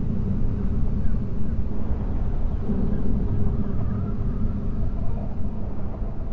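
Low, continuous rumbling drone that swells and eases slightly without stopping, a dark ambient sound bed for a horror book trailer.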